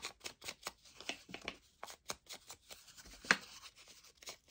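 Foam sponge brush dabbing ink onto the edges of a paper flower layer: a quick run of soft dabs and paper rustles, about four a second, with one louder tap a little past the middle.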